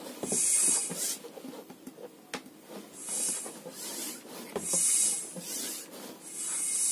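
Bicycle pump being worked in strokes, a hiss of air with each push, about four strokes, pressurising a plastic soda bottle through a valve in its cap. A single sharp click comes about a third of the way in.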